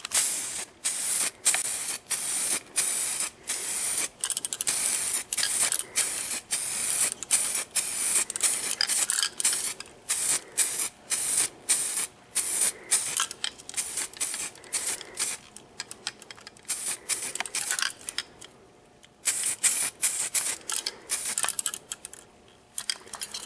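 DuraCoat aerosol gun-coating spray can hissing in many short bursts, broken by brief gaps, as the coating is laid on in strokes for a first coat. There are a couple of longer pauses in the last third.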